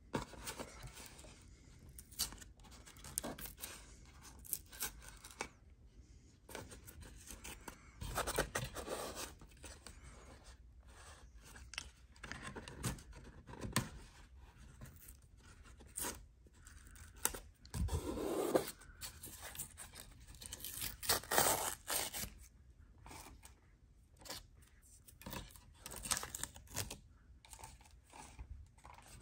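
Packaging being torn and handled open by hand: irregular tearing, scraping and rustling with scattered sharp knocks, and a few longer tearing stretches.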